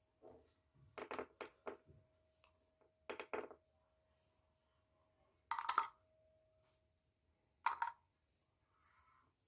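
Plum seed rattle shaken in short, crisp bursts: a quick run of shakes about a second in, another around three seconds, then single shakes near the middle and again near the end.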